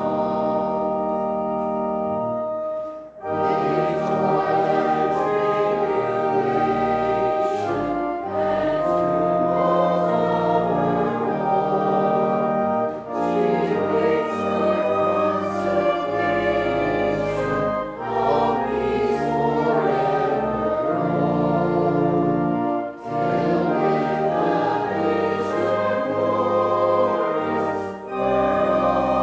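Church choir singing a hymn in held chords, with a short break between lines every five seconds or so.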